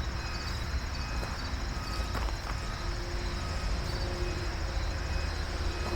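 Outdoor background: a steady low rumble with faint, repeated short high chirps of insects, and a couple of faint clicks about two seconds in.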